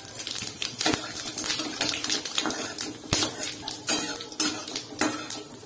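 Metal spatula scraping and clinking against a steel kadai, stirring panch phoron seeds and a dried red chilli frying in hot oil. Irregular clicks and scrapes, a few sharper knocks among them.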